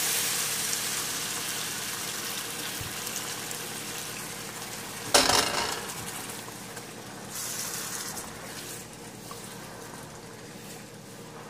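Stock pouring into a pan of hot, fried chickpea-and-egg masala, which sizzles loudly at first and then fades as the liquid cools the pan. About five seconds in there is one loud, sharp clank of metal, followed by quieter stirring and bubbling.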